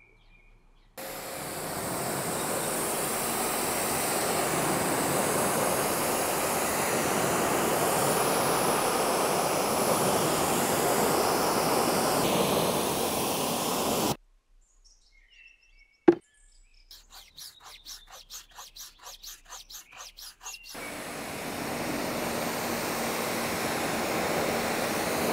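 Pressure washer jet spraying water onto a car wheel and bodywork, a steady hiss that cuts off suddenly. In a short break between two spells of spraying there is a single sharp click and then a quick run of rhythmic strokes, about three or four a second.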